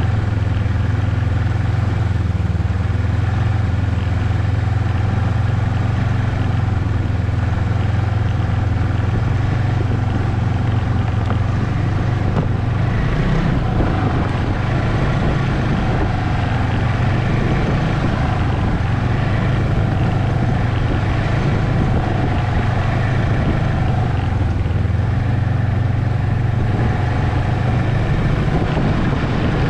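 Ski-Doo Expedition snowmobile engine running at a steady cruising pace, heard close from the sled itself as a steady low drone. The drone wavers briefly about halfway through, then settles again.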